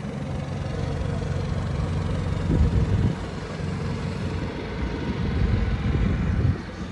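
Honda EU7000is inverter generator running with a steady engine hum, growing louder over the first couple of seconds.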